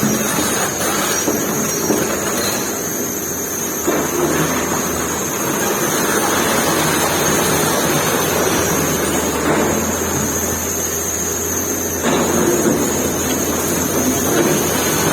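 Excavator's diesel engine running steadily under load, with a few sharp knocks about four and twelve seconds in as the bucket works at the building's structure.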